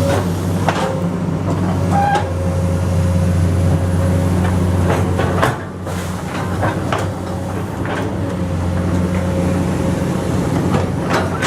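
Komatsu PC200 hydraulic excavator's diesel engine running steadily, with scattered clanks and knocks from the machine at work.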